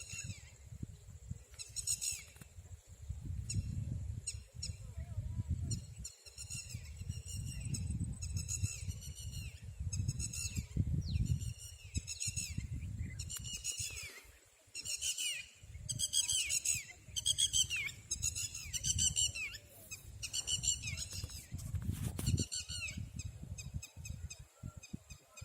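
Red-wattled lapwing calling again and again: runs of sharp, high, downward-curving notes repeated every second or two, over a low rumbling noise.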